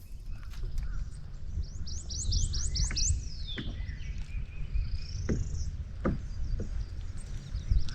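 A songbird singing: a quick run of about seven rising high chirps, then a falling note and a shorter whistled note, over a steady low rumble, with a few light knocks in the second half.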